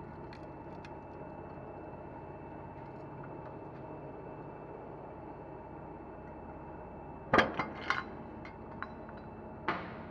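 A press forcing the wheel hub out of a Mazda 6 steering knuckle, over a steady hum. About seven seconds in there is a loud sharp crack followed by a few small clicks as the hub breaks loose from the worn, rusty bearing, pulling the inner race out with it, and another crack comes near the end.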